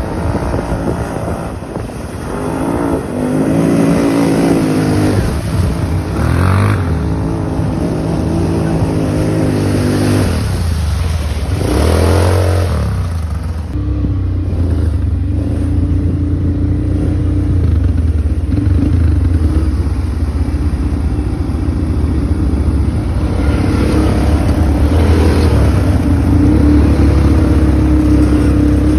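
ATV engine running, revving up and easing off several times in the first half, then holding a steady pitch.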